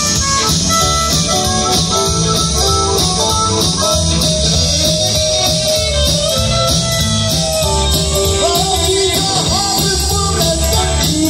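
Live blues-rock band playing: electric guitars, bass, keyboard and drums, over a steady repeating bass line.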